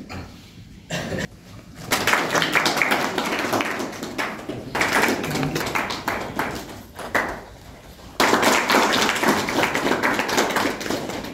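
A small group clapping their hands in spells, with a sudden louder round starting about eight seconds in.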